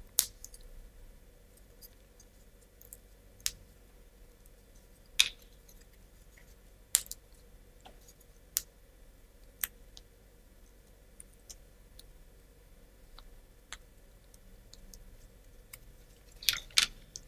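Laser-cut plywood model parts being pressed out of their sheet and handled: sharp wooden clicks and snaps at irregular intervals of a second or two, with a few louder ones close together near the end.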